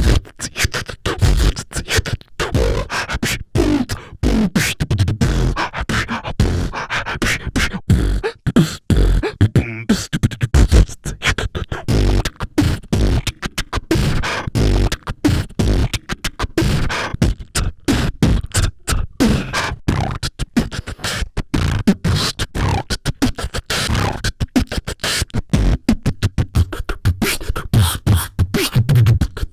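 Beatboxing: a vocal percussion groove of mouth-made kick-drum thumps, snare-like clicks and hissed hi-hats in a fast, steady rhythm, with a few short hummed or sung tones.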